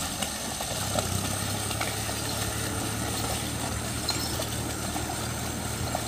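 A steady low engine hum, like a motor idling, with a few faint scattered clicks.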